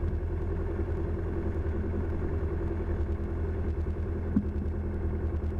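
Cessna 172 Skyhawk's piston engine idling steadily, heard from inside the cabin, with a single short click a little over four seconds in.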